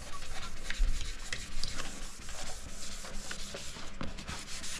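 Hand wet-sanding of a painted bumper with a fine 3000-grit abrasive pad: a run of short, soft rubbing strokes.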